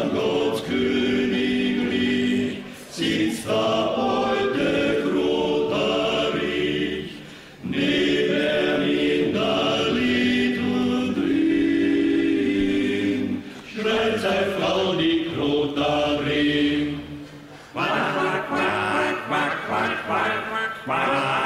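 Male a cappella quintet singing in close harmony, holding long chords in phrases with a short break between each.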